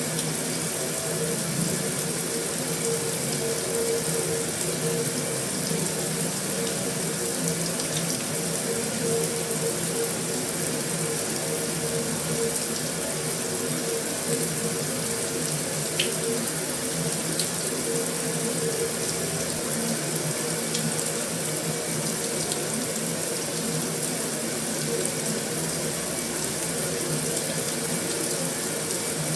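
Heavy rain falling steadily on a metal roof: an even, unbroken hiss, with a few faint sharper ticks of single drops.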